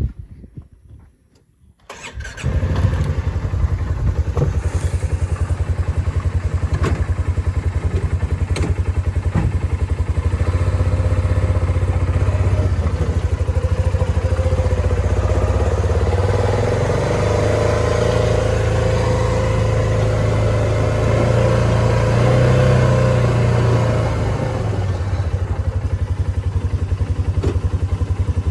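Polaris RZR 570 side-by-side's single-cylinder engine starting up about two seconds in and then running loud and steady as the machine drives off, its pitch rising and falling with the throttle partway through.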